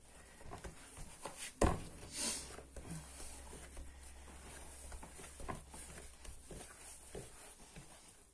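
Yeast dough being kneaded by hand on a silicone baking mat: soft, irregular pressing and patting sounds, with one sharper thump about a second and a half in, over a faint low hum.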